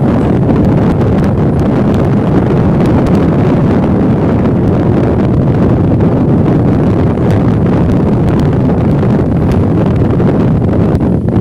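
Steady wind rumble on the microphone of a moving motorcycle, loud and unbroken, with faint scattered ticks over it.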